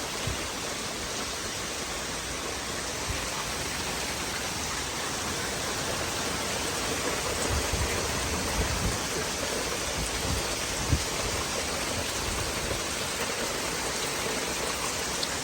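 Heavy rain pouring down steadily in a thunderstorm, with a few faint low thumps.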